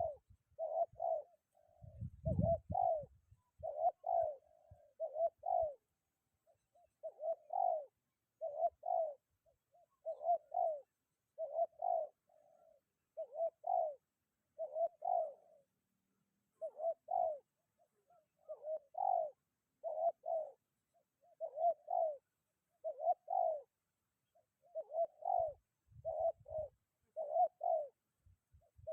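Spotted dove (tekukur) cooing steadily, mostly in two-note phrases about every second and a half. Brief low rumbles of wind on the microphone come near the start and again near the end.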